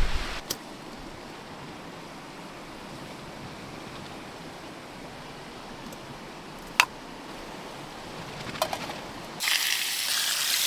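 Steady rush of a river flowing, with a few faint clicks. Near the end a much louder, brighter hiss starts suddenly.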